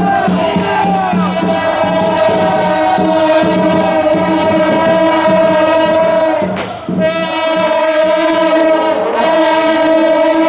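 Loud procession music from wind instruments, reedy or brassy, playing long held notes with a short break about seven seconds in.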